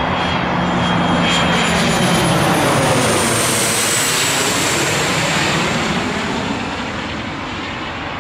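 Small twin-engine business jet passing low overhead on approach to land: its engines' rushing noise builds to a peak and then fades, with a high whine that falls in pitch as it goes by.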